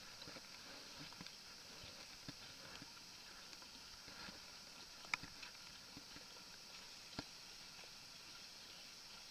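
Faint water lapping with a steady hiss and a few small knocks, the sharpest about five seconds in and another about two seconds later.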